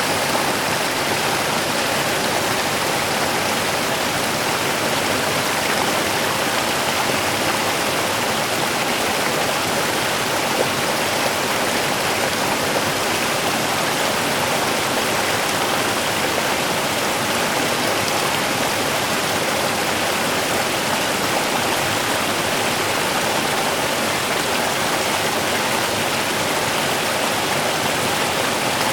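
Small river running steadily over stones: a constant rushing and babbling of water.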